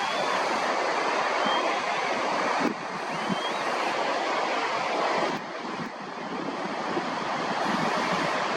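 Steady rushing wind noise on the microphone, broken by sudden drops in level about a third and two thirds of the way through.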